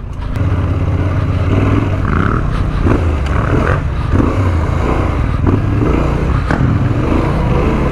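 Yamaha Ténéré 700's parallel-twin engine running steadily as the bike rides over rough off-road ground, with a few short knocks and rattles from the bike.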